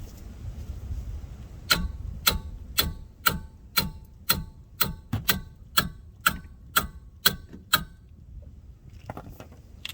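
About a dozen metal-on-metal hammer blows, roughly two a second, each with a short ring, struck against an adjustable wrench clamped onto a frozen brake caliper slide pin to break it loose.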